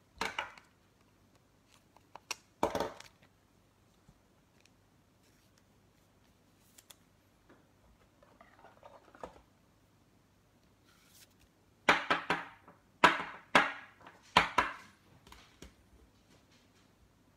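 Short rustles and taps of hands handling trading cards and their packaging on a table. There is one at the start, another about two and a half seconds in, and a quicker run of several from about twelve to fifteen seconds in.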